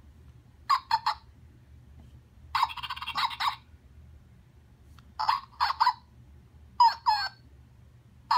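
Zhu Zhu Pets Siberian Husky toy puppy playing its silly electronic dog noises through its small speaker: four short groups of squeaky yips and calls, some gliding in pitch, with pauses between them.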